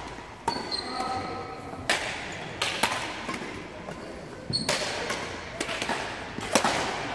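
Badminton rally: rackets striking the shuttlecock in sharp smacks, about six hits a second or so apart.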